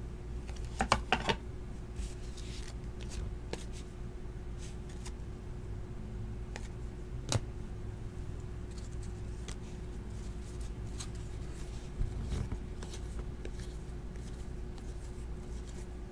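2016 Platinum baseball trading cards being handled and flipped through a stack, making scattered light clicks and slaps of card stock over a faint steady hum. The loudest handling sounds come about a second in and near twelve seconds.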